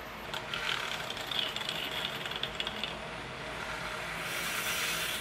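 Handheld battery-powered milk frother whirring in a glass of thick green shake, with scattered small clicks.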